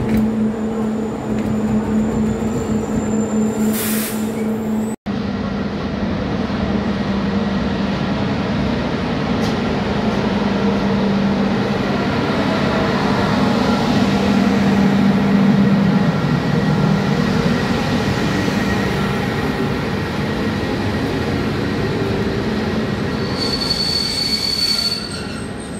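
Train on the move in the station: a shunting movement, then after a sudden drop-out about five seconds in, a CFR 060-EA electric locomotive pulling in with a steady hum and wheels squealing on the rails. A short high squeal comes near the end.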